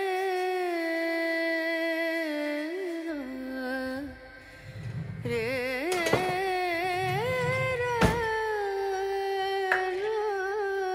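Background music: a slow Carnatic-style melody hummed or sung by one voice, with long held notes that waver and bend. A couple of sharp clinks come through, the loudest about eight seconds in.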